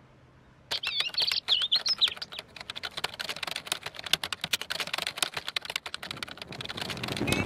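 Frantic, very fast typing on a laptop keyboard, a dense stream of key clicks that starts just under a second in. About a second in, a few short chirping squeaks sound over the typing.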